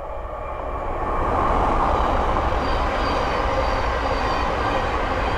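Thameslink Class 700 (Siemens Desiro City) electric multiple unit passing at speed: a loud rushing rail noise that builds over the first second and a half and then holds steady, with a faint high whine in the middle.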